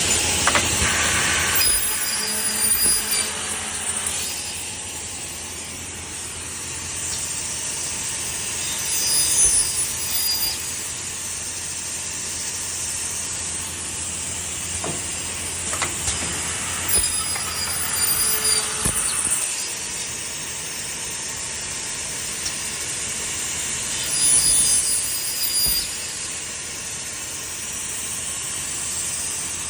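Automatic aluminium-profile CNC machine working: a steady hiss, with high-pitched cutting whines from its tools several times as they slot, drill and cut the aluminium.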